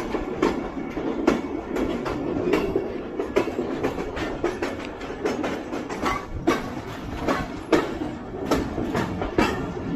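Passenger train coach wheels clattering over rail joints, an irregular run of sharp knocks over a steady rolling rumble.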